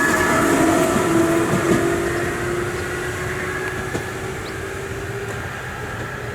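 JR East 719 series electric train pulling away, its thyristor phase-controlled DC commutator traction motors giving a jet-like whine that rises slowly in pitch and gradually fades. The loud jet sound is an abnormal noise that marks this unit as a noisy, ageing train.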